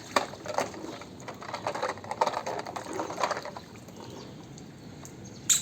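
Water splashing with small knocks and clicks as a plastic toy car is handled in it; it settles down after about three and a half seconds, with a sharper click near the end.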